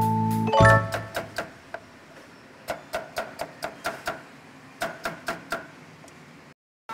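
Cleaver slicing cucumber on a wooden chopping block: crisp knocks of the blade hitting the board, about five a second, in three short runs. A mallet-percussion tune dies away in the first second.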